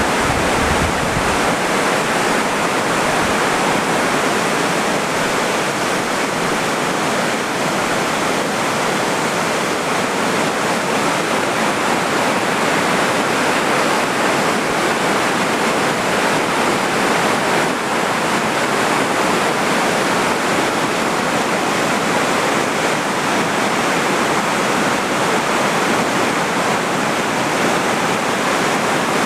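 Steady, even rush of the White River's water pouring through Lock and Dam #3.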